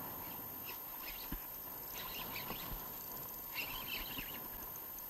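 Faint high bird chirps in a few short runs, over a steady hiss of wind and choppy sea water around a small inflatable boat.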